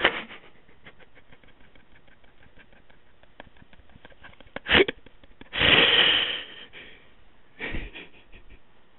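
A person's breath noises between sentences: a short loud sniff, then a longer hissing breath about six seconds in and another near the end, with faint small clicks in between.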